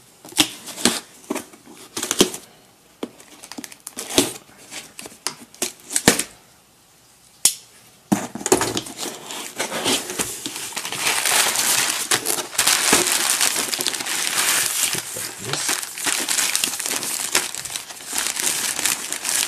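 Packing tape peeled and a cardboard shipping box opened, heard as separate sharp cracks and taps. From about eight seconds in, steady crinkling as the plastic mailing envelope inside is handled and pulled out.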